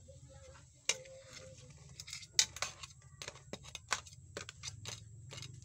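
A utensil knocking and scraping against a metal cooking pan while shrimp and crabs are stirred in their boiling liquid: a run of sharp irregular clicks and clatters, the first followed by a short ring.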